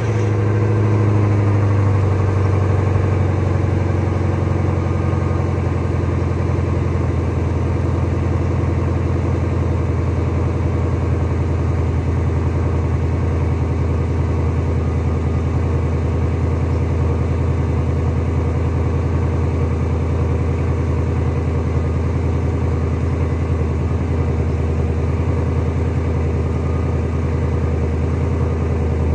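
2003 Mercury Marauder's 4.6-litre DOHC V8 idling steadily through aftermarket Magnaflow mufflers, heard from behind at the twin exhaust tips.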